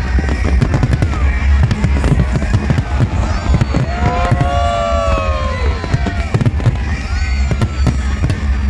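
Fireworks display going off continuously: dense crackling and popping over a steady deep rumble of booms. Around the middle, whistling glides rise and fall for about two seconds, with shorter whistles near the start and end.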